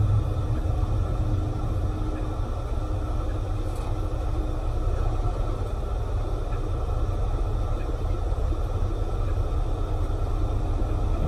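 Class 25 diesel locomotive D7535's Sulzer six-cylinder engine idling at a standstill, a steady low rumble.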